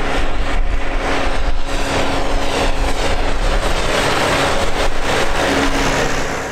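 Tractor's diesel engine running steadily as the tractor drives up the road toward the listener, a constant engine tone with no change in revs.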